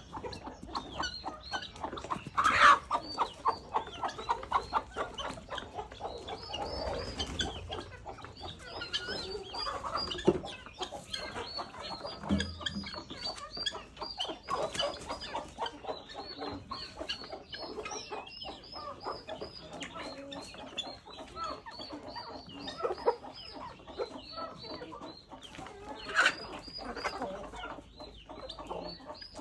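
Backyard chickens clucking and calling, with a steady run of short high peeps and two louder calls, one about two seconds in and one near the end.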